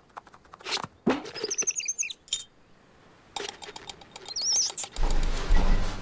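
Cartoon sound effects without dialogue: a quick patter of clicks, two short high warbling squeaks, then a louder rustling scrape near the end.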